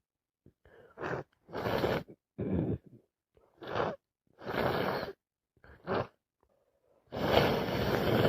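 A woman with a head cold sneezing wet sneezes over and over, with gasping breaths between them: about seven short bursts, then a longer one of about two seconds near the end.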